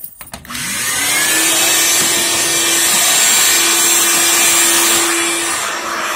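Shop vacuum switched on with a click, its motor winding up with a rising whine in the first second, then running steadily with a loud rush of air and a steady hum.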